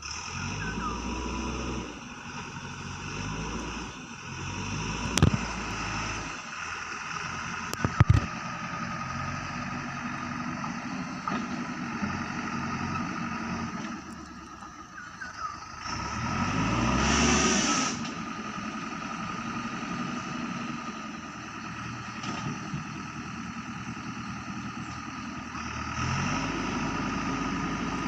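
JCB 3DX backhoe loader's diesel engine running, revving up and settling back several times as the machine works. Two sharp knocks come about five and eight seconds in.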